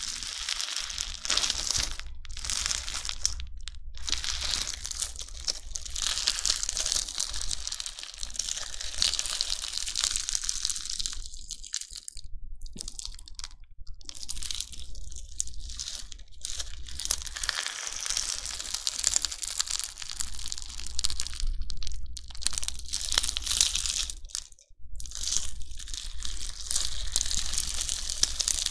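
Crunchy bingsu slime being squeezed and pressed: its foam beads crackle and pop densely, in stretches broken by a few short pauses.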